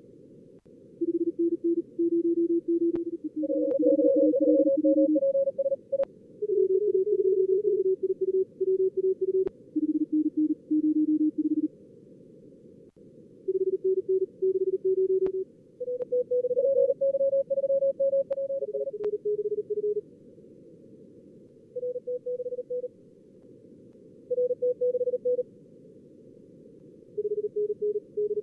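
Simulated contest Morse code (CW) from a logging program's practice mode: fast keyed tones at several slightly different pitches, from about 300 to 550 Hz, come in bursts of a few seconds over a steady, narrowly filtered receiver hiss. A few faint sharp clicks fall between them.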